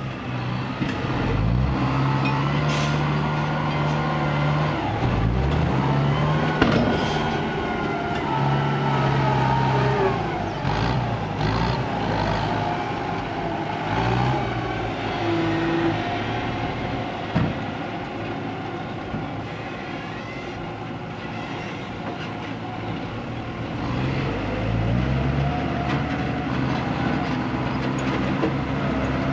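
Diesel engine of a Mitsubishi ten-wheel dump truck running while its tipper bed is raised, its pitch holding steady, then stepping up and down as it is revved several times. Near the end the engine rises again as the truck pulls away.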